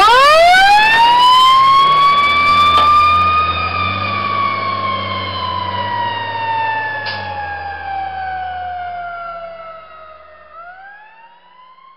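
Fire engine siren winding up from a low growl to a high wail over about three seconds, then slowly coasting down in pitch for several seconds and winding up again near the end, the slow spin-up and coast-down typical of a mechanical siren. The engine's diesel rumble pulls away underneath, and the whole sound fades as the truck drives off.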